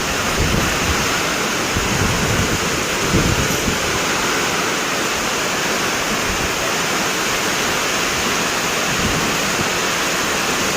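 Heavy rain pouring in a windy storm, a steady rushing hiss. Wind buffets the microphone in the first few seconds.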